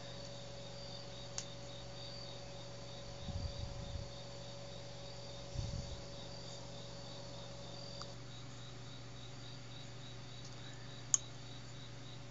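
Crickets chirping steadily in a high, evenly pulsing trill over a low electrical hum. Soft low thumps come around three to four seconds and six seconds in, and a single sharp click sounds near the end.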